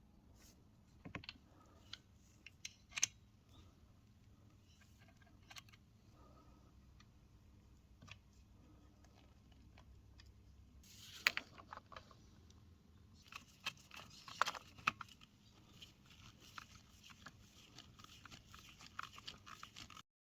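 Parts of a vintage Can-O-Mat can opener being handled and worked by hand: scattered light metallic clicks and taps, a short louder clatter about eleven seconds in, then a denser run of small rattling, scraping clicks in the second half.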